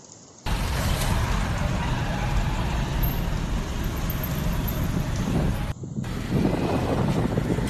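Loud, gusting cyclone wind rushing and buffeting the microphone, with a heavy low rumble. It starts abruptly about half a second in and drops out briefly just before the end.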